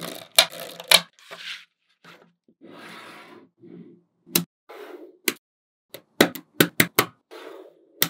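Small magnetic balls clicking sharply as they snap onto one another, with short rattling stretches as loose balls are handled and rolled together. Several clicks come in quick succession near the end.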